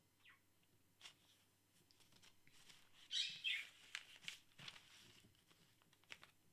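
Faint handling of paper: Bible and notebook pages rustling as they are lifted and turned, with a few light taps and clicks. The loudest rustle comes about three seconds in.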